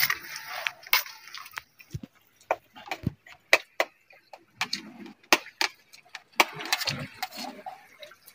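Irregular sharp clicks and clinks of small seashells being picked apart by hand and knocking against plates.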